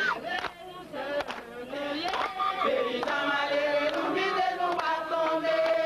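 A marching crowd singing a protest song together, several voices holding long chant-like notes in unison.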